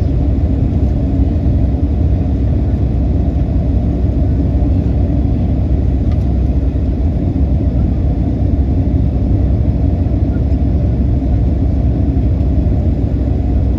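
Steady low rumble of an airliner cabin in flight, engine and airflow noise with no breaks or changes.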